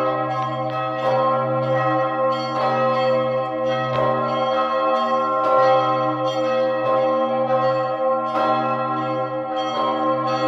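Augustin, the third-largest bell in the Czech Republic, swinging in its tower. Its clapper strikes about every second and a half, and each stroke rings on over a deep steady hum.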